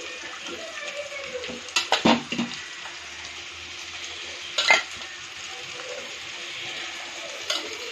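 Raw mutton pieces sizzling in hot oil and onions in a kadai as they are spooned in. A steel spoon clanks on metal, loudest about two seconds in and again just before five seconds, with a fainter clank near the end.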